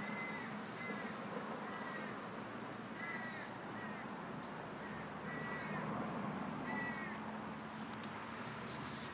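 A series of short, high animal calls, about seven in the first seven seconds, over a steady low hum.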